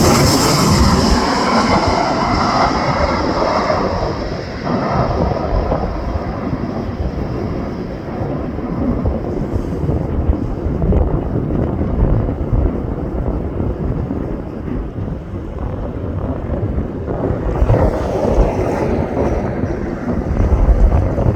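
Twin CFM56 turbofan jet engines of a P-8A Poseidon passing by, their high whine fading over the first few seconds into a low, steady rumble, with wind buffeting the microphone; the engine noise swells again near the end.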